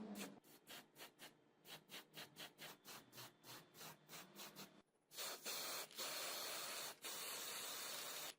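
Quick, even rubbing strokes on a surface, several a second, typical of hand sanding or scrubbing a panel during car restoration. About five seconds in they give way to a steady spray hiss, broken twice for an instant.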